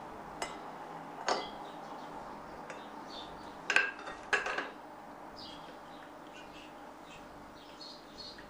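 A few sharp clinks and knocks of things set down on ceramic plates on a wooden table, the loudest two coming close together about four seconds in. Faint chirping runs in the background.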